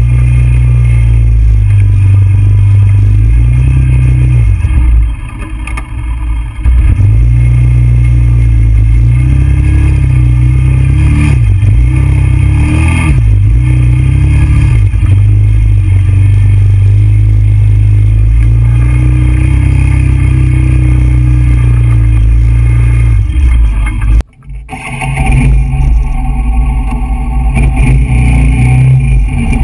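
TGB Blade 425 quad's engine running under way, its pitch rising and falling with the throttle, with a brief drop-out about 24 seconds in.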